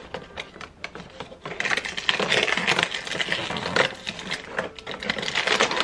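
Perforated cardboard door of an advent calendar being pried and torn open by fingers: scratching, crackling and tearing of thin card. There are a few scattered clicks at first, then dense crackling from about a second and a half in.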